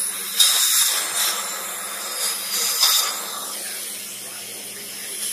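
Steady hiss of air from a dental chairside instrument held at the patient's mouth, with louder surges about half a second in and near three seconds.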